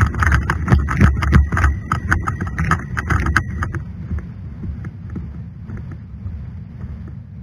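Irregular clattering of a running airsoft player's rifle and gear, with footfalls, over a low wind rumble on a head-mounted camera's microphone. The clatter stops about four seconds in, leaving only the quieter rumble.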